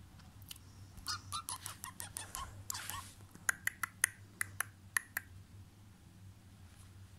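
Quick wet mouth smacks and clicks, then about eight sharp single clicks spread over a couple of seconds.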